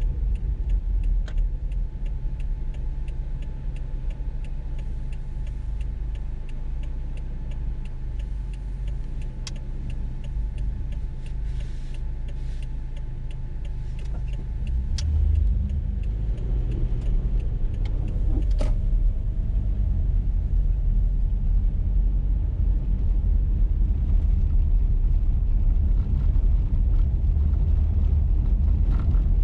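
Car driving on a snowy road, heard from inside the cabin: a steady low rumble of engine and tyres that grows louder about halfway through, with a faint fast ticking in the first half and a single sharp knock about two-thirds of the way in.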